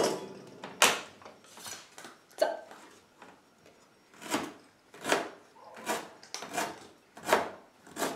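Kitchen knife chopping peeled parsnip into small cubes on a cutting board: a series of sharp knocks about one a second, with a short pause about three seconds in.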